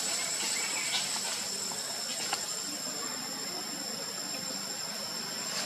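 Outdoor forest ambience: insects keep up a steady high-pitched drone, with a couple of faint clicks.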